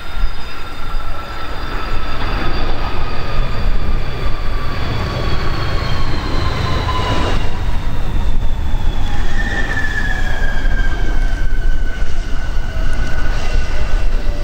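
Fokker 100's rear-mounted Rolls-Royce Tay turbofans whining over a heavy low rumble as the jet rolls out after landing. Several whine tones slide slowly down in pitch as the engines spool down, and a new whine comes in about two-thirds of the way through and falls too.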